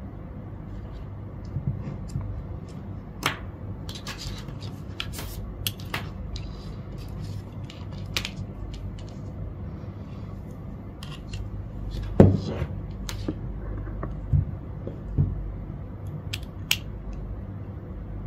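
Scattered small clicks and light knocks of electrical leads, plugs and alligator clips being handled and fitted on a desk, with the sharpest knock about twelve seconds in, over a steady low hum.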